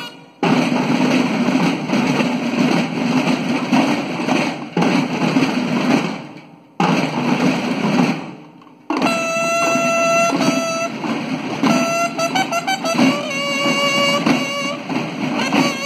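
School drum and bugle corps (banda de guerra): massed snare drums playing in unison with a few short breaks, then bugles coming in about nine seconds in with held notes over the drums.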